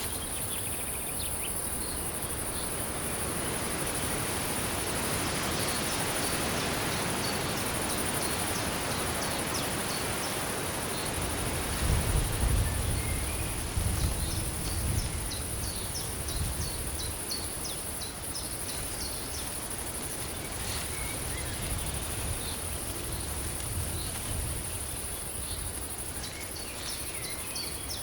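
Night-forest ambience: crickets and other insects chirping, with a steady high insect drone over an even hiss. A low rumble swells about twelve seconds in and fades over the next few seconds.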